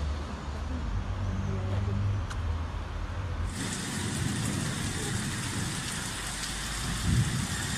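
A steady low rumble, then from about three and a half seconds in a steady hiss of rain and wind over a storm-soaked street, with a brief low swell near the end.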